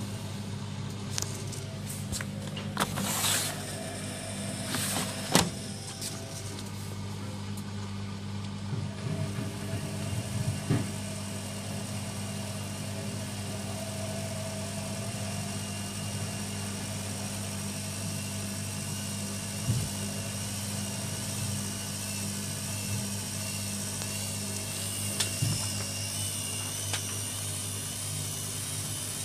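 AEG Lavamat 6410 front-loading washing machine running, its motor giving a steady hum. Scattered clicks and brief rushing noises come in the first ten seconds, with a sharp knock about five seconds in.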